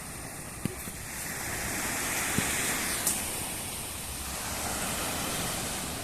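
Turboprop airliner on its take-off, its engine and propeller noise a broad rush that swells a second in, peaks a couple of seconds later and then slowly eases off. A few small clicks sound over it.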